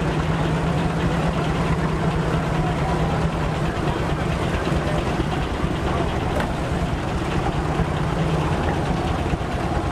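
Case steam traction engine running under belt load, driving a portable sawmill: a steady mechanical running noise with a low hum that fades briefly about four seconds in and then returns.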